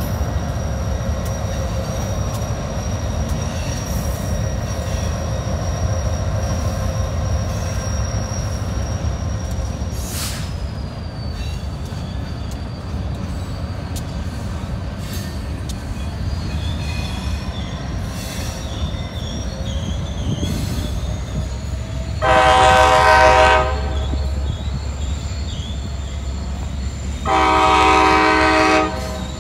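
Diesel locomotive engine running with a steady low rumble. Near the end its air horn sounds two blasts about five seconds apart, the second a little longer.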